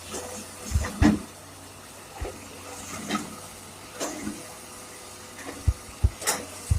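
Excavator working in mud: a steady low engine hum, with irregular clanks and thuds scattered through, about nine in all.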